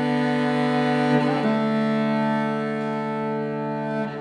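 Solo cello playing long bowed notes, moving to a new note about a second and a half in.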